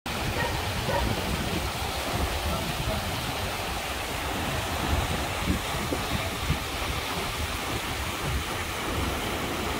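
Muddy floodwater rushing fast down a swollen stream channel, a steady noise of churning water, with wind buffeting the microphone.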